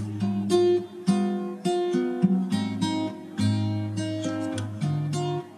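Background music: strummed acoustic guitar playing a steady run of chords.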